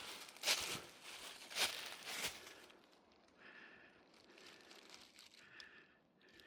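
Hiker's footsteps crunching on a mountain trail, about four steps in the first two and a half seconds, then quieter.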